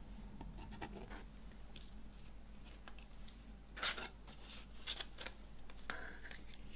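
A CD and its card sleeve being handled on a wooden tabletop: a string of short paper-and-card scrapes and rubs as the disc goes into the sleeve and the sleeve is slid about. The loudest scrape comes about four seconds in.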